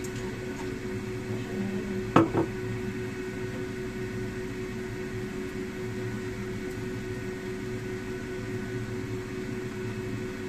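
Steady hum of a kitchen fan motor with a constant low tone, and a sharp double clack about two seconds in.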